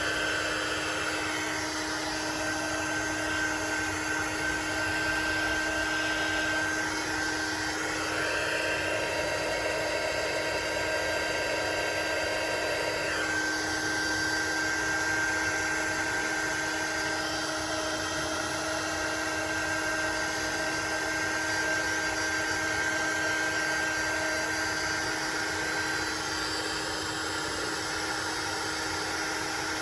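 Craft heat tool running steadily, its small fan motor giving a constant whine under the rush of hot air as it dries the freshly sprayed ink on the card. The airflow's tone shifts slightly about 8 and 13 seconds in.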